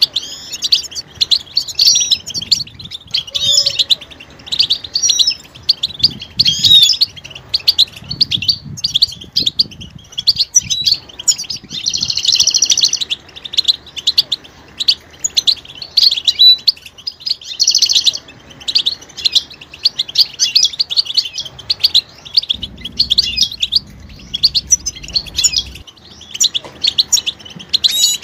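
Several European goldfinches twittering and calling: a dense, fast run of liquid chirps and twitters, broken by buzzy trills about twelve seconds in and again about eighteen seconds in.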